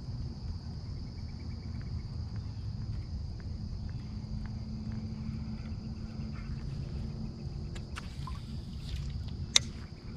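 Insects chirring steadily over a low rumble, with a few faint ticks and one sharp click near the end.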